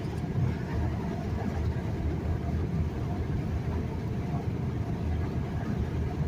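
Steady low road and engine rumble inside the cabin of a moving truck.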